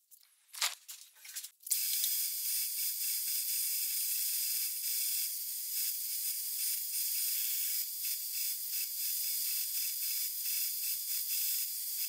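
A few brief light knocks, then a wooden tong blank held against the running abrasive belt of a homemade belt grinder: a steady sanding hiss that starts about two seconds in and carries on evenly.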